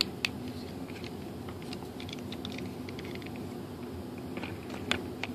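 Scattered light clicks and taps of hands working a wire and small parts into a model glider's tail fin, a cluster of them in the middle and a couple of sharper ones near the end, over a steady low hum.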